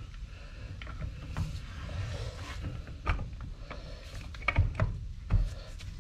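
Handling noise from reassembling a Weka core drill: scattered clicks and knocks of metal parts as the motor housing is turned on the gearbox and the side handle is fitted, with a few louder knocks near the end.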